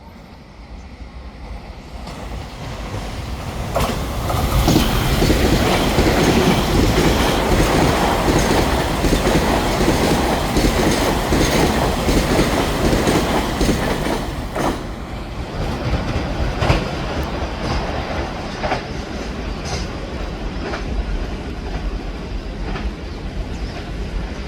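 Taiwan Railways EMU3000 electric multiple unit passing at speed: the rail noise builds over the first few seconds, then holds as a steady rush of wheels on track, with wheels clacking over rail joints every couple of seconds.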